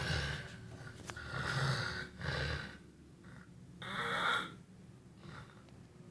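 A sleeping person snoring: about five separate snores, spaced unevenly. The loudest come about a second and a half in and about four seconds in.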